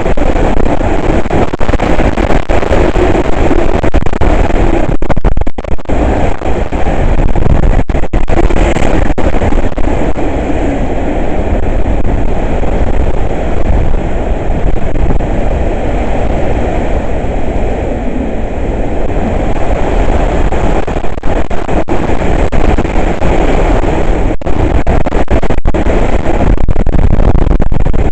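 Hurricane wind blowing hard and without pause, a loud, steady low rumble broken by a few very short dropouts.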